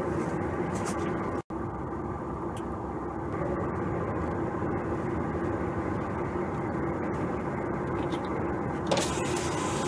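Semi-trailer truck's diesel engine running steadily at a crawl, heard from inside the cab as an even low hum. The sound drops out for an instant about a second and a half in, and a short sharp noise comes near the end.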